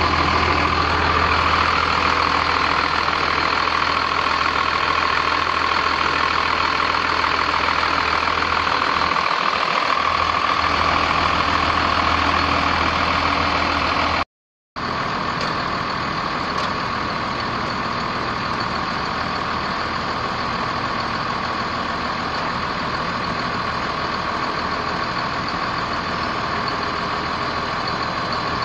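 A truck's Cummins 5.9-litre inline-six diesel engine running steadily, heard in two takes with a brief cut to silence about halfway through.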